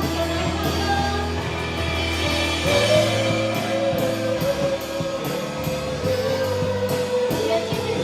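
Live worship band music with bass, guitar and regularly struck cymbals; a long held note enters about three seconds in and is sustained to the end.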